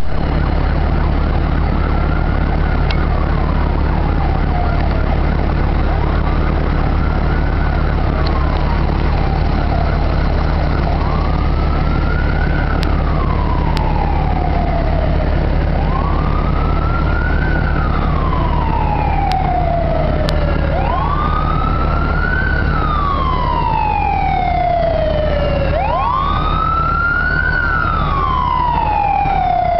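Wailing emergency-vehicle siren, rising and falling about every five seconds and growing louder, with a second siren joining near the end, over a steady low rumble.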